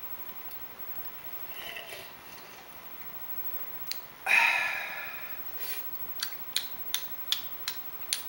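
A person's loud, breathy 'aah' after a sip from a mug, about four seconds in, fading over about a second, with a fainter short vocal sound a couple of seconds before it. Near the end comes a run of about six sharp clicks.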